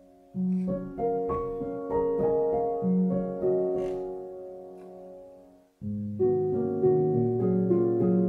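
Background piano music. A gentle phrase of ringing notes fades away just past the middle, and a new, fuller phrase begins at once.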